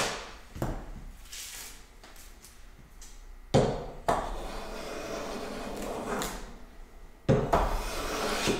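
A thin wooden board knocked into place against the workbench's planing stop, then two long hand-plane strokes shaving along the rough board. Each stroke opens with a knock as the plane lands on the wood; the first runs about three seconds, the second starts near the end.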